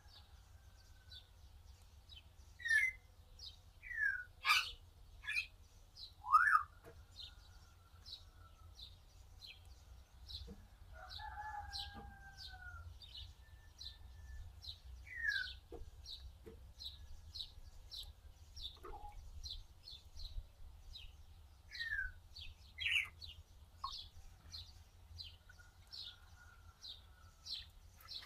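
Birds chirping: a steady run of short high chips, about two or three a second, with louder upward-sweeping chirps scattered through and a longer two-toned call near the middle, over a low steady hum.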